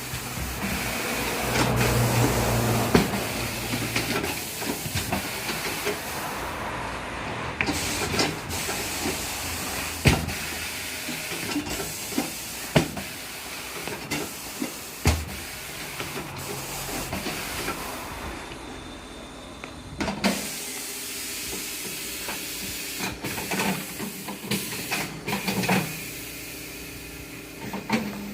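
Compressed air hissing steadily during tyre-changing work, broken by frequent sharp metallic clanks and knocks. The hiss drops away briefly twice.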